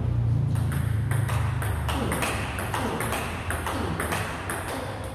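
Table tennis rally: a celluloid ball struck back and forth by bats and bouncing on the table, in a steady rhythm of about three sharp clicks a second. One of the bats is a Butterfly Fan Zhendong ALC blade with Dignics 09C rubber.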